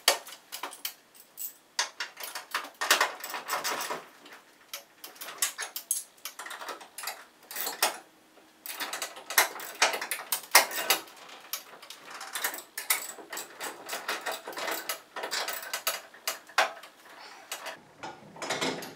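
Hand socket ratchet clicking in quick runs with short pauses, tightening the nuts on the bolts that join the sections of a garage door opener's rail.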